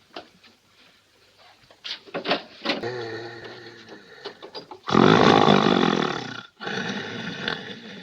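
A man snoring: softer pitched snores at first, then a very loud, rasping snore about five seconds in that lasts over a second, and another starting just after it.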